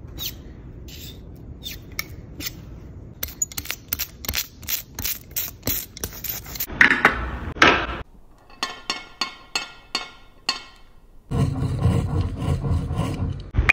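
Letterpress ink being worked on a metal ink slab: a hand brayer rolled back and forth through tacky ink, with a run of short sticky crackles and scraping strokes that come faster and louder as it goes.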